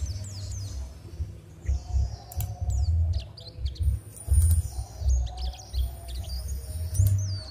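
Small birds chirping again and again, short quick calls that slide down in pitch, over an uneven low rumble.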